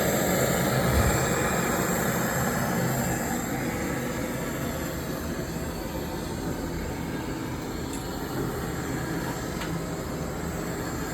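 Steady mechanical running noise, a low hum under a broad hiss, easing slightly in level over the first few seconds and then holding.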